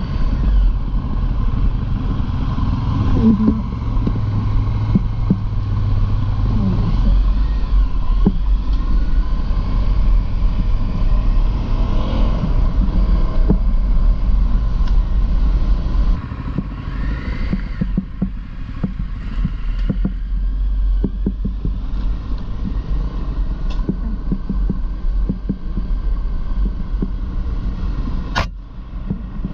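Dual-sport motorcycle running on the move, with a heavy low rumble that eases somewhat about halfway through, scattered light knocks, and a sharp click near the end.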